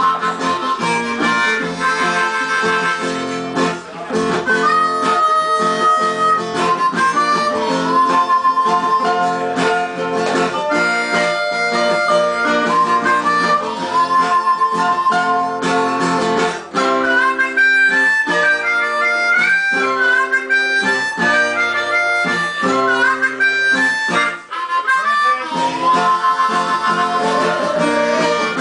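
Live harmonica leading the melody over strummed guitars, with held notes and slides in the first half and choppier short phrases with brief gaps from a little past halfway.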